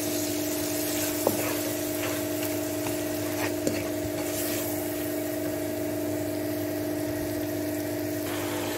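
Onion-tomato masala with ground spices sizzling in oil in a kadhai, with a few light spatula scrapes against the pan, over a steady low hum.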